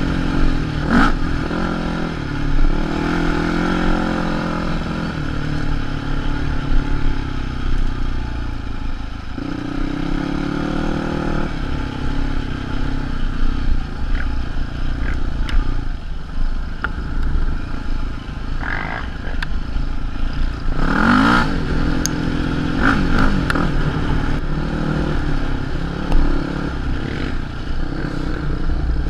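Quad ATV engine running under the rider, its pitch rising and falling again and again as the throttle is opened and eased along a rough dirt trail.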